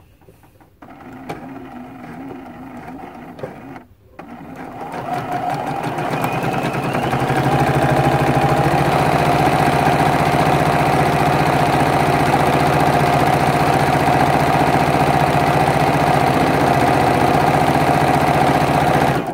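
Juki HZL-F600 Exceed computerized sewing machine stitching a strip of fabric binding. It runs slowly for a few seconds and pauses briefly, then speeds up over about four seconds to a steady fast stitching rhythm, and stops near the end.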